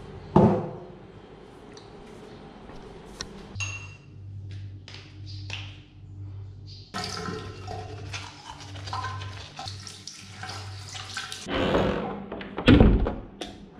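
Bathroom sounds: a thump about half a second in, then water and toothbrushing noises at a sink over a steady low hum, and two loud rushing thumps near the end, typical of a toilet being flushed.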